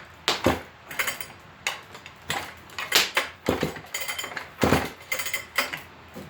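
Irregular metallic clanks and knocks, about a dozen, some ringing briefly, from an old McCulloch 250 chainsaw being handled on a bench.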